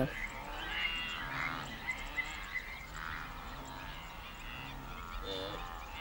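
Chorus of many overlapping croaking animal calls, each short, continuing throughout.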